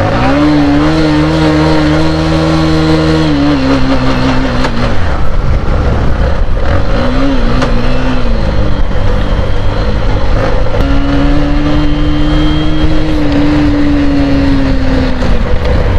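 Motorcycle engine revved under throttle: the note rises sharply and holds for a few seconds, falls away, picks up briefly, then rises and holds high again near the end. Freshly serviced with a cleaned air filter, its sound is clear.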